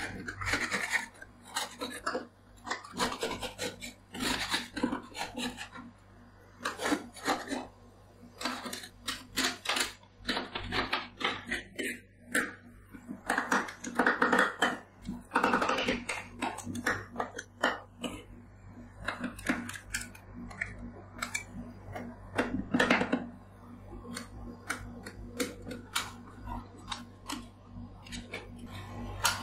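Metal spatula scrapers chopping and scraping a frozen, crumbly Pocari Sweat mixture on the steel cold plate of a rolled-ice-cream pan: quick irregular taps of the blade edges on the metal, and rasping scrapes as the icy mass is pushed and spread. A steady low hum runs underneath.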